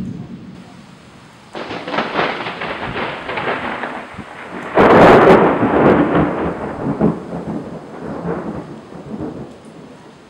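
Thunder: a rolling peal starts about a second and a half in, then a sudden, louder crack about five seconds in rumbles on and slowly fades away.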